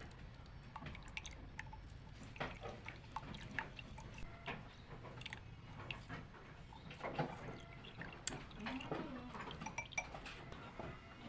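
Liquid dripping and trickling in a kitchen, with irregular small taps and clinks of utensils and glassware, during the making of an herbal cough remedy.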